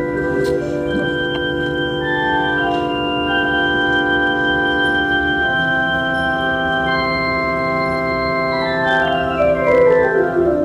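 Organ playing a prelude in slow, sustained chords, with a chord change about halfway through and a run of falling notes near the end.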